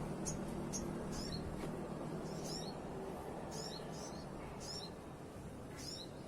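Sooty-headed bulbul chicks giving thin, high chirps that slide down in pitch, about seven of them at uneven intervals.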